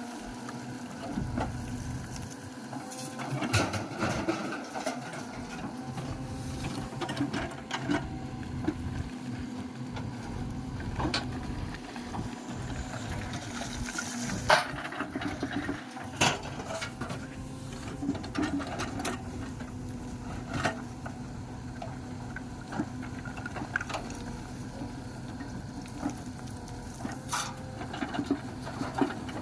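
JCB backhoe loader's diesel engine running steadily, with scattered sharp knocks and clanks from the bucket as it loads mud.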